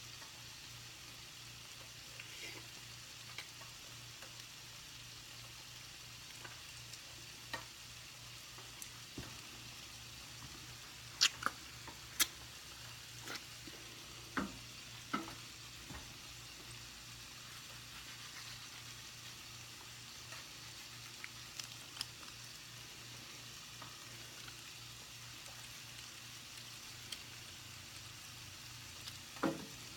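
Food sizzling steadily in a frying pan, with scattered sharp clicks and knocks of a utensil against the pan, a few louder ones along the way.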